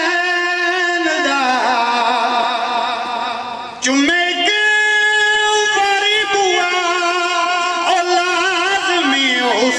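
A man singing an elegiac devotional verse in long held notes, amplified through a microphone. The first note slowly falls and fades, and a new loud phrase begins about four seconds in, its pitch wavering.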